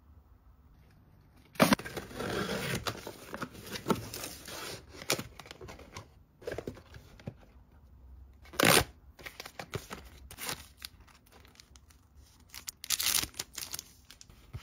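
Cardboard boxes and wrapped packets being handled and opened: bursts of crinkling and tearing, starting sharply about two seconds in, with another short burst near the middle and more crinkling near the end.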